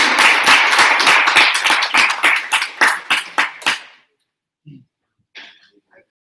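Audience applauding at the end of a talk, the clapping thinning to a few last separate claps and stopping about four seconds in.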